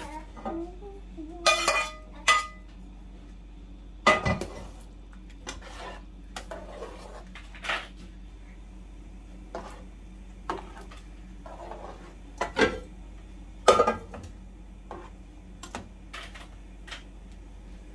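A spoon stirring soup in a large aluminium stockpot, clinking and knocking against the pot's side and rim at irregular intervals, over a low steady hum.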